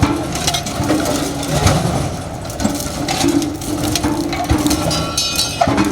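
Metal motorcycle silencers being crushed under a road roller, with irregular crunching and cracking of metal.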